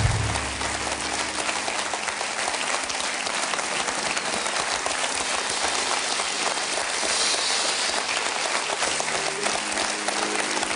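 A studio audience applauding steadily, with the band's last low note dying away right at the start.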